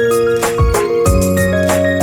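Background music: held synth and keyboard notes over a bass line and a steady beat.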